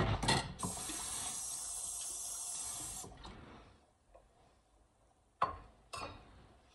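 Kitchen tap running for about two and a half seconds and then shut off suddenly, after a short clatter at the start. Near the end, two sharp knocks as a ceramic plate is set down on the counter.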